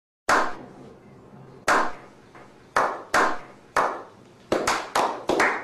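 About a dozen sharp, loud knocks, spaced a second or so apart at first and then coming in a quick run near the end.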